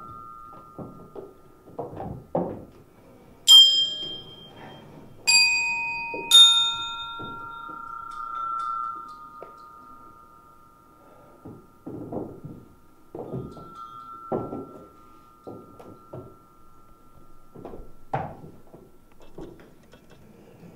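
Three struck bell-like metal chimes, each a different pitch, ringing on for several seconds, over scattered knocks and thumps from movement on a wooden stage.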